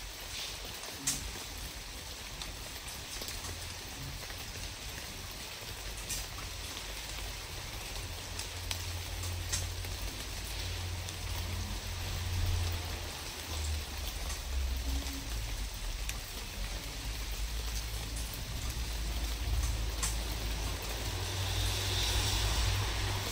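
Steady outdoor noise: an even hiss with a low rumble underneath that grows stronger in the second half, and a few faint clicks.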